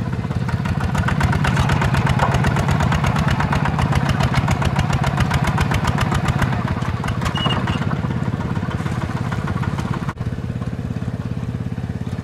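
Single-cylinder diesel engine of a two-wheel walking tractor chugging steadily as it pulls a loaded trailer, growing louder about a second in and easing off after about seven seconds.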